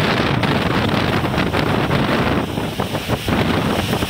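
Strong storm wind buffeting the phone's microphone: a loud, steady rushing that eases briefly a little past halfway, then returns.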